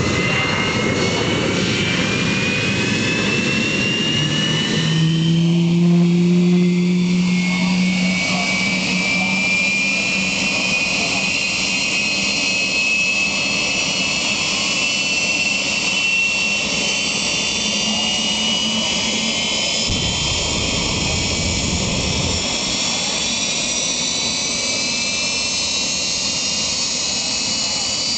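Jet engine of a jet-powered truck running with its exhaust aimed at a car: a steady roar under a high turbine whine that climbs slowly in pitch. A low droning tone joins for a few seconds about five seconds in.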